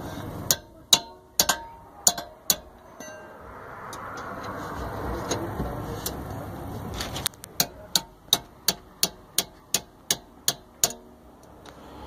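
Sharp metallic clicks of a wrench working the bolts of a car's rear disc brake caliper. A few scattered clicks come in the first seconds, then after a soft, noisy stretch a steady run of about three clicks a second.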